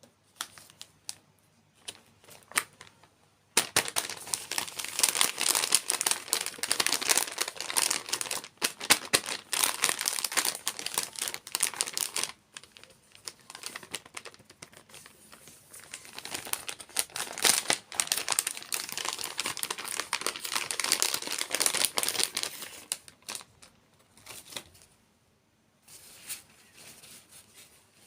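Plastic food packaging crinkling and being torn open by hand in two long stretches, with scattered small rustles and clicks between them.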